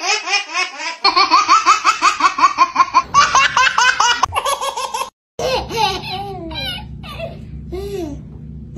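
Babies laughing: a fast, unbroken run of high-pitched laughs for about five seconds, then after a brief break a different baby's laughter in shorter separate bursts over a low steady hum.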